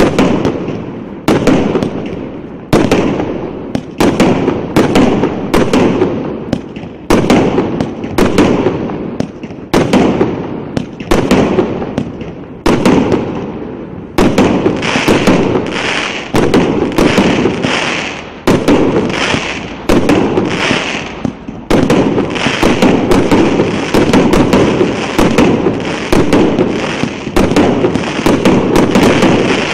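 A 49-shot, 1.2-inch consumer fireworks battery firing shot after shot, each a sharp bang that fades away. The shots come about one every second and a half at first, then faster from about halfway, running almost together near the end.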